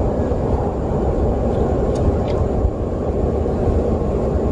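Steady low rumbling noise of wind buffeting the microphone, with a few faint light ticks.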